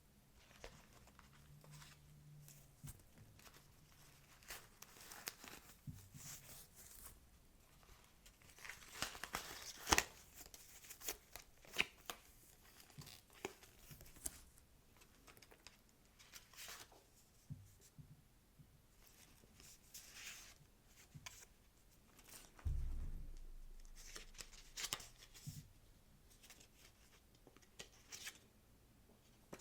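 Faint close-up handling of unboxing packaging: scattered crinkling, rustling and light tapping, with one louder soft thump in the latter half.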